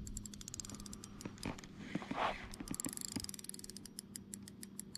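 Fishing reel ticking rapidly as the angler works a fish snagged under submerged timber, in two runs broken about two seconds in by a short rush of noise. A low steady hum runs underneath.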